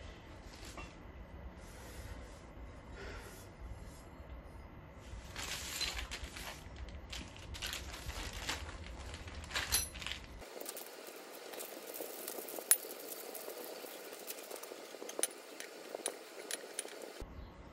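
Clear plastic hardware bag crinkling as it is handled, then small metal screws clinking and rattling onto a tiled floor in scattered sharp clicks, the loudest about halfway through.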